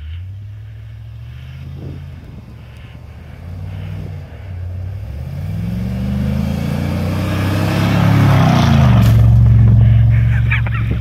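Chevrolet pickup truck's engine revving higher and louder as it accelerates past through deep snow, holding at high revs and loudest near the end.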